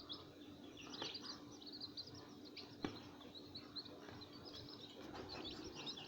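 Young chicks peeping, a busy run of many short, high chirps, over a faint steady hum, with a couple of sharp ticks.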